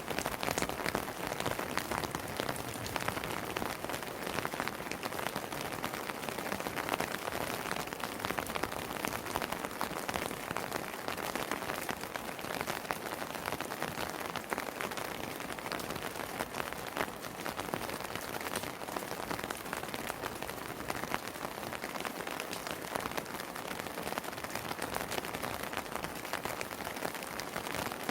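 Steady rain falling on a house terrace: a dense, even patter with many individual drops ticking out above it.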